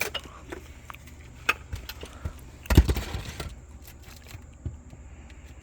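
Metal hand tools clinking and scraping on asphalt shingles as nails are worked loose for removal, with scattered clicks and a sharp knock about three seconds in.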